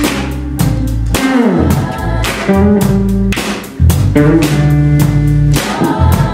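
Live rock band playing: electric guitars, bass guitar and drum kit keeping a steady beat, with a held note sliding down in pitch about a second in.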